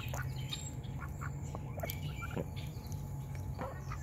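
A flock of domestic ducks giving scattered short quacks and calls, over a low steady hum.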